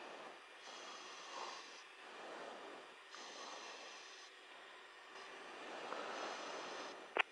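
Hiss of an aircraft radio and intercom feed, swelling and fading, with a sharp click near the end as a radio transmission keys in.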